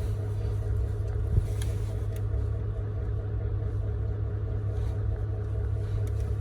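Large truck's diesel engine idling steadily, with a single short knock about a second and a half in.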